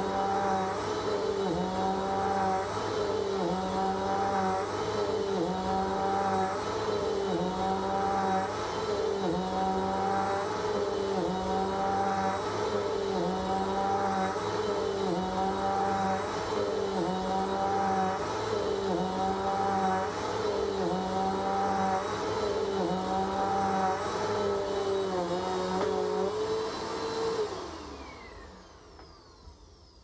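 Bagless upright vacuum cleaner running on carpet, its motor pitch dipping and recovering about once a second as it is pushed back and forth. Near the end it is switched off and the motor winds down.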